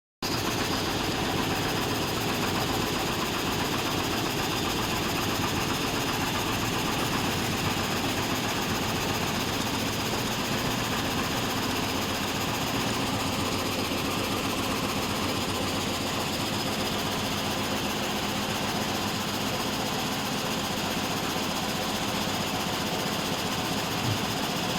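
SanHe 3030 automatic frame saw running steadily while sawing wood, an even, continuous mechanical noise, with a short knock near the end.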